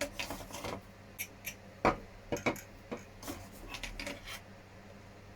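Small injection-moulded hard plastic parts of an RC truck cab clicking and tapping as they are handled and pressed together. The clicks come irregularly, the sharpest two about two seconds in.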